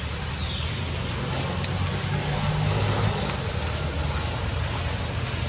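Steady outdoor background: a low rumble with hiss over it. A short falling whistle comes just after the start.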